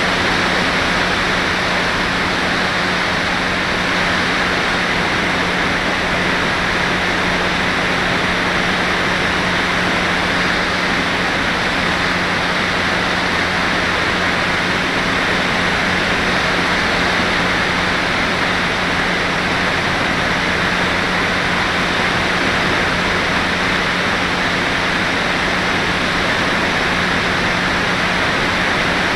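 Steady rushing of airflow over the onboard camera of an FPV RC glider in flight, with a steady low hum beneath it.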